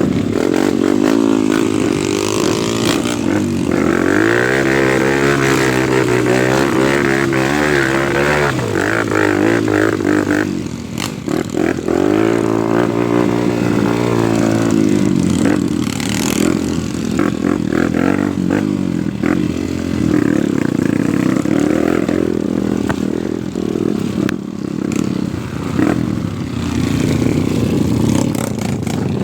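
Off-road motorcycle engine revving up and down repeatedly, with knocks and clatter throughout.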